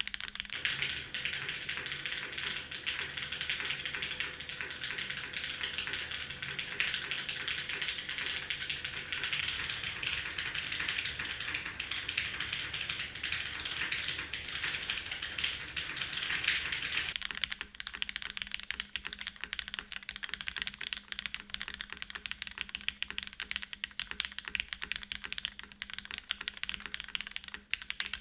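Continuous fast typing on a Matrix 8xv2.0 custom mechanical keyboard with lubed Cherry vintage black linear switches on an aluminum plate, under GMK keycaps. The clatter of keystrokes is dense at first, then becomes lighter and more spaced about two-thirds of the way through.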